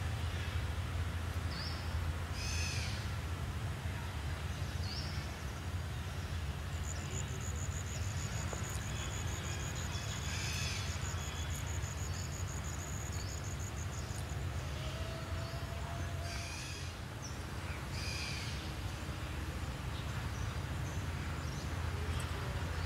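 Outdoor ambience: a steady low rumble with birds chirping briefly every few seconds, a high buzz for several seconds in the middle, and one short whistle near the two-thirds mark.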